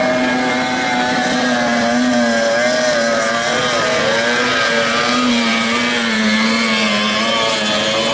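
Outboard motors of 30 hp racing tunnel boats running flat out: a steady, high engine drone whose pitch wavers a little as the boats run past.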